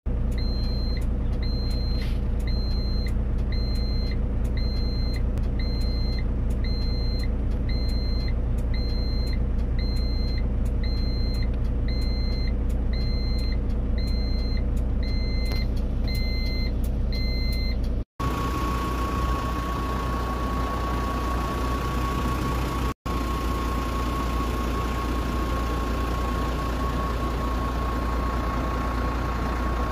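Aircraft tug's reversing beeper sounding about once a second over its engine running, as the tug moves a helicopter. After a cut about 18 seconds in, a steady mechanical hum with a constant high whine.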